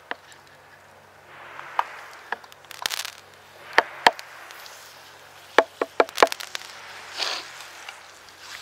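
Sharp wooden knocks and clacks, about a dozen, several in quick pairs, as a wooden cutting board and knife are handled at a campfire. Between them come short spells of sizzling from slices of deer heart frying in a cast iron skillet.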